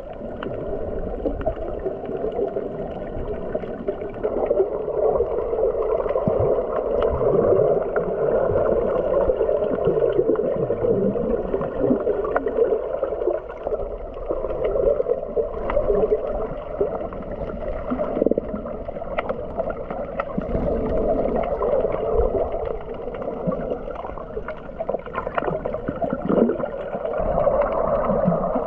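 Muffled underwater water noise heard through a submerged camera: a steady dull rush with gurgling and scattered small clicks.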